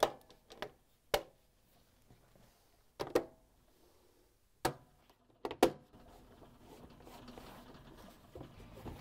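Plastic choke cover of a microwave door being snapped onto the door's latches: about six sharp snaps, spaced unevenly over the first six seconds.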